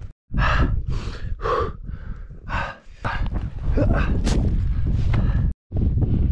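Strong wind buffeting an action camera's microphone: a heavy low rumble with a run of sharp gusty blasts in the first three seconds. The sound cuts out completely for a moment just after the start and again about five and a half seconds in.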